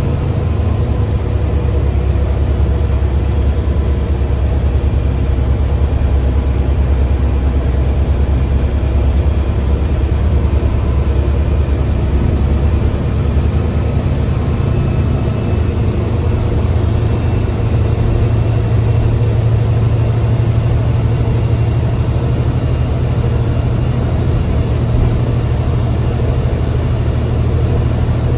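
Benz bus's diesel engine running steadily under way, heard from inside the driver's cabin, a constant low drone with a faint high whine above it.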